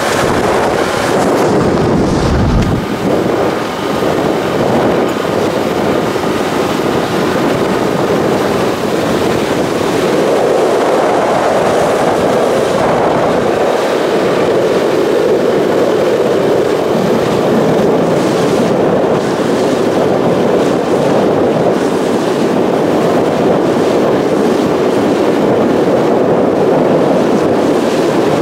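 Speedboat running at speed: a steady loud rush of engine, hull on water and wind, with wind buffeting the microphone, most heavily about two seconds in.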